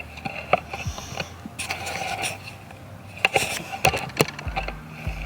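Irregular knocks, clacks and scrapes of hard objects being handled, most likely collected rocks and gear being moved about before washing; a few sharper clacks stand out past the middle.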